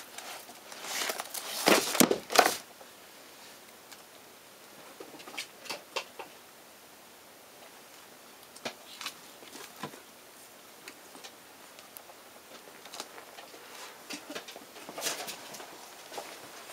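Ferrets scrabbling and climbing among books and paper notebooks: scattered scratches, rustles and light knocks, with a cluster of louder knocks about two seconds in.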